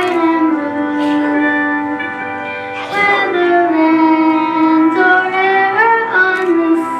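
A young girl singing solo into a microphone over instrumental accompaniment, holding long notes that slide between pitches.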